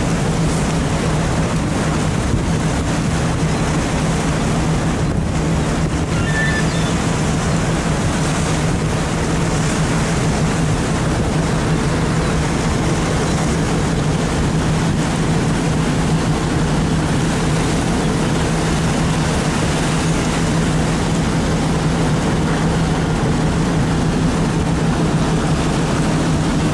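Fishing boat's machinery droning steadily, a low hum under a constant rush of sea and wind.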